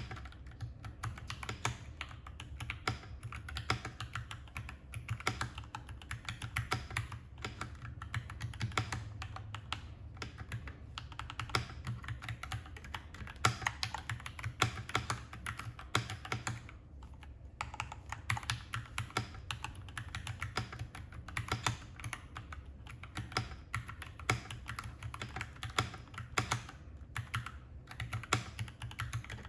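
Continuous typing on a mechanical keyboard with linear Gateron Red switches in an aluminium Keychron K4 V2 case, under ABS doubleshot keycaps: a dense, irregular clatter of keystrokes, with a short pause a little past the middle.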